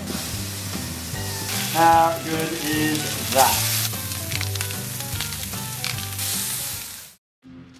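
Raw steaks sizzling as they sear on a hot barbecue flat plate, a steady frying hiss with music underneath. The sound cuts off suddenly about seven seconds in.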